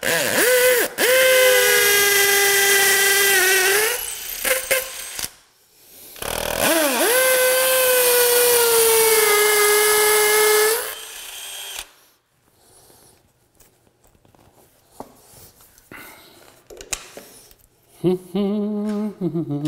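Cordless drill boring two holes through a T-molding track into the floor, two steady motor whines of about four seconds each, the pitch dipping as the bit bites at the start of each; then quiet handling sounds.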